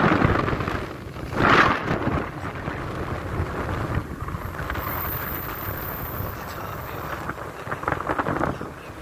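Wind rushing over the microphone and road noise from a moving car, with a brief louder rush about a second and a half in and another near the end.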